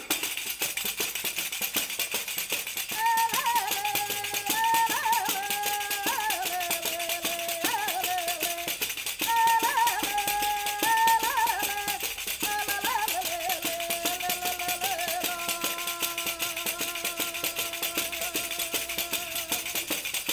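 Galician pandeireta (a hand-held frame drum with metal jingles) shaken and struck in a steady muiñeira rhythm, jingling throughout. A woman's solo singing voice comes in about three seconds in, with long held notes over the drum.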